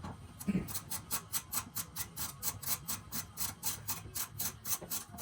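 A ratcheting hand tool clicking rapidly and evenly, about six clicks a second.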